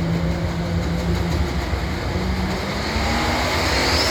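Farm tractor engine running under the pull, with a steady low drone that shifts in pitch partway through. Near the end a high-pitched whine begins to rise.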